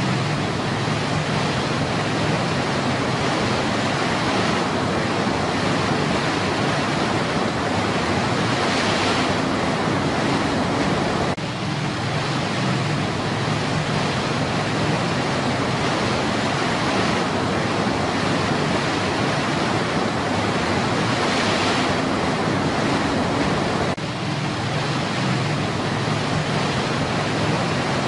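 Stream water rushing down a rocky cascade of white water: a steady, even roar of flowing water.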